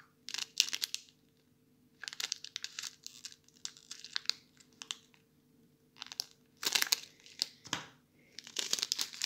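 Thin plastic bag crinkling in several short, irregular bursts as a mini handheld heat sealer is clamped and slid along its edge.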